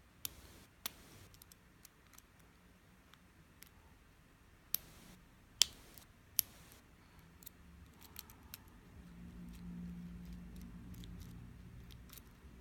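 Lock pick scraping and clicking against the pins of a five-pin key-in-knob lock cylinder under tension, with a few sharp metallic clicks among many faint ticks. A low hum comes up in the last few seconds.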